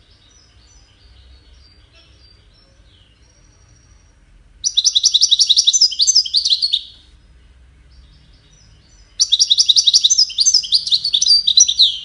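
European goldfinch singing. Soft, high twittering for the first few seconds, then two loud bursts of rapid, rattling notes about two seconds long each; the second runs on to the end.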